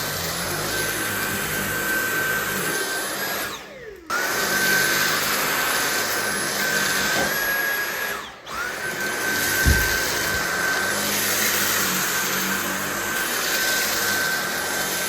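Dyson V8 cordless stick vacuum running with a steady high motor whine. About 3.5 s in and again near 8 s the motor briefly winds down, its pitch falling, then spins straight back up, as the power trigger is let go and squeezed again. A dull thump about 10 s in.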